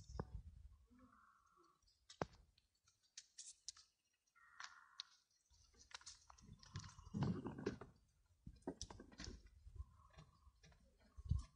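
Cattle grazing and walking on a dry, stony hillside: faint, scattered clicks and crunches, with bursts of low rumble in between.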